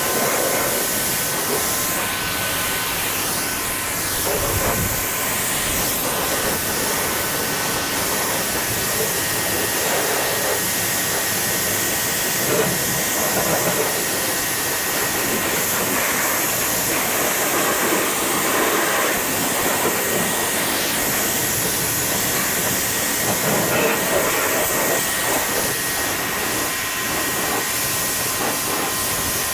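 High-pressure washer jet spraying water onto the tractor's body and tyres: a steady hiss that swells and dips a little as the jet moves, with a faint steady whine under it.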